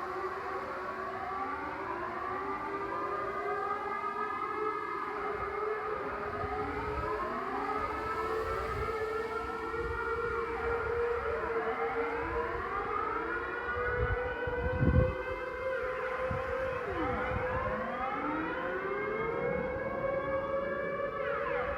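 Dutch civil-defence air raid siren sounding its routine monthly test: rising and falling tones overlap over a steadier tone that creeps slowly upward in pitch. A brief low rumble comes about fifteen seconds in.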